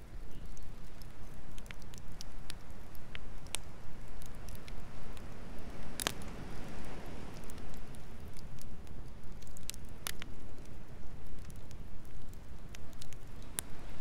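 Wood campfire crackling, with sharp pops scattered irregularly throughout, the loudest about six seconds in, over a steady low rumble.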